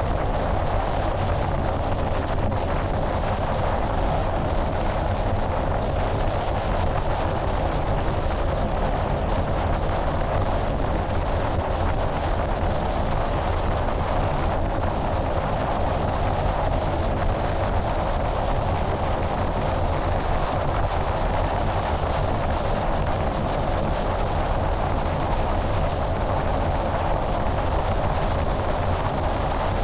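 Steady wind rush and low road rumble picked up by a camera lying on the hood of a moving car.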